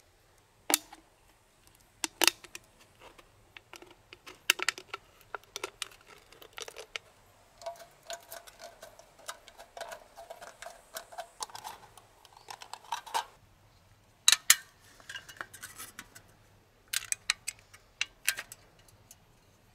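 Small pocket-knife scissors cutting through the thin aluminium wall of a soda can: a run of sharp metallic snips and clicks, with a longer scraping cut between about 8 and 13 seconds in.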